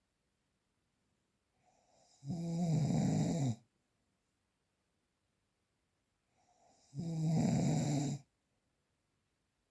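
Snoring: two long snores about four and a half seconds apart, each starting faintly and then swelling into a buzzing rattle that drops in pitch as it ends.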